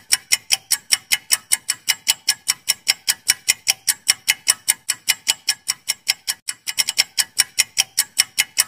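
Clock-tick sound effect of a quiz countdown timer: sharp, even ticks, about four a second.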